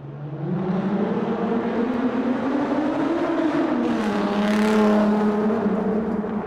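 Car engine driving through a tunnel. The engine note swells and climbs in pitch for about three seconds, then drops and holds steady, loudest about five seconds in.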